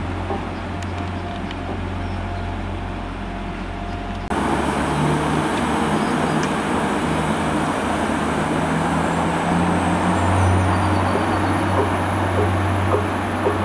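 Class 175 diesel multiple unit running through the station, its diesel engines giving a steady low hum. About four seconds in the sound jumps abruptly louder and brighter, and a faint high whine rises near the end.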